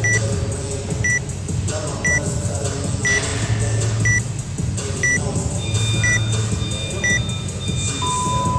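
Workout countdown timer beeping: eight short high beeps, one a second, then a longer, lower beep about eight seconds in, the signal that the countdown has hit zero.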